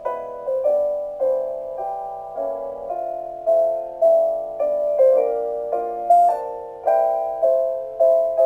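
Background music: a soft piano or electric-piano melody with notes struck in a steady rhythm, about one and a half a second.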